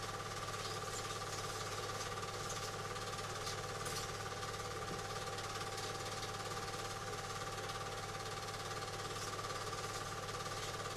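Film projector running steadily: an even motor hum with a fast, unbroken mechanical clatter, the sound of an old home movie being played back for transfer.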